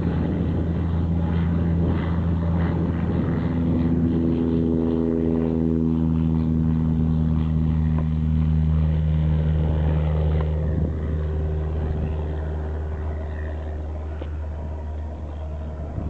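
Cessna 172's piston engine and propeller at full takeoff power as it rolls, lifts off and climbs away. The steady drone dips slightly in pitch as it passes and fades over the last few seconds.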